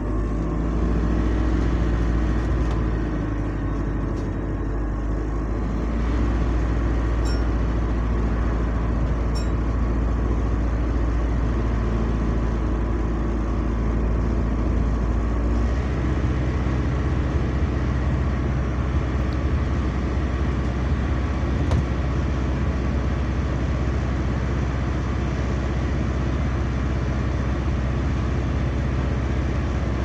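Loud noise inside a moving bus: a steady engine and drivetrain drone mixed with road noise. The deepest part of the hum drops away about halfway through.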